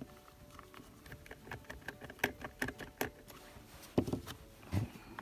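Small plastic clicks and taps of batteries being fitted into the battery compartment of a toy transformation belt, with two louder knocks near the end.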